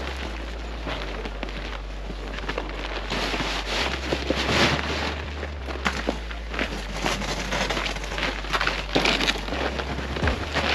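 Fabric of an Otter pop-up hub ice-fishing shelter rustling and crackling in irregular bursts as it is unfolded and pulled open into shape, growing louder about three seconds in.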